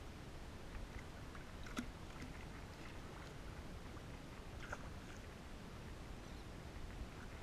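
Faint steady rumble of wind and water against a boat hull, broken twice by short splashes, about two seconds in and again near the five-second mark, as a hooked tarpon thrashes at the surface beside the boat.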